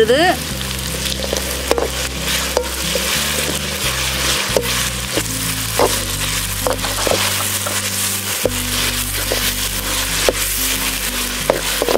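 Sliced onions, curry leaves and ginger-garlic paste sizzling in hot oil in a metal kadai, with a steady hiss. A perforated metal ladle stirs them, scraping and tapping the pan now and then.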